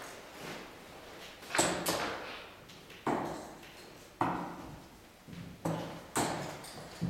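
Steel-tip darts striking a bristle dartboard: a series of sharp hits, each dying away with a short echo of a large hall.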